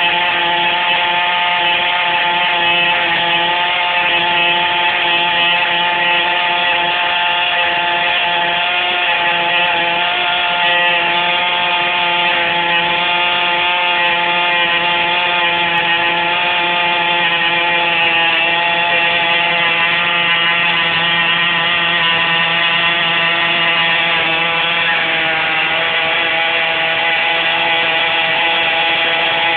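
1975 Soviet-made Raduga-7 engine running steadily at a constant, high-pitched buzz on its first run.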